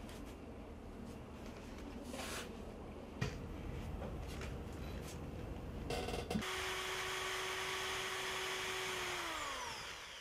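Handheld cordless drill boring into a tabletop. A few seconds of handling knocks come first, then the motor runs at a steady pitch for about three seconds and winds down with a falling whine near the end.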